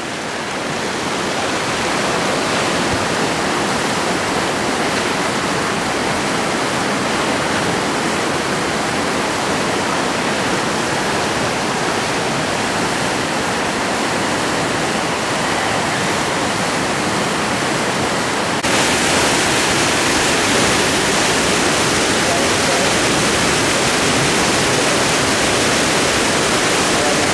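Whitewater rapids rushing steadily. About two-thirds of the way through the rush suddenly gets louder and brighter.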